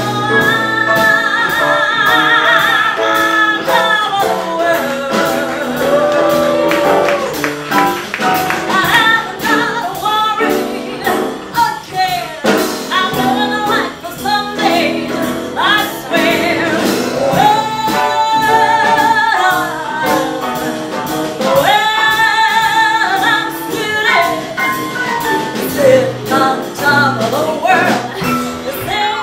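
A woman singing a show tune into a microphone to grand piano accompaniment, with long held notes sung with vibrato.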